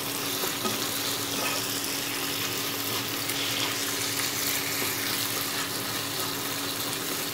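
Shell pasta and chicken sizzling in a non-stick frying pan while a spatula stirs and tosses them, with a steady low hum underneath.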